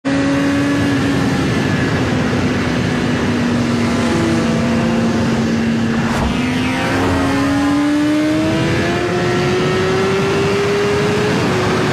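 Synthesized sportbike engine sound effect running steadily, its pitch sagging slightly and then climbing gradually through the second half as the bike speeds up. A brief sweep of falling tones comes about six seconds in.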